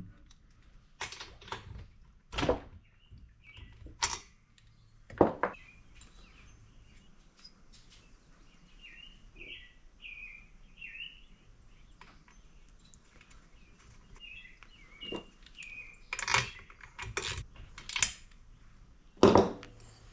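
Scattered clicks, taps and knocks of hand tools and small parts being worked on a bench, the sharpest a few seconds in and again near the end. Short chirps of small birds sound in the background through the middle.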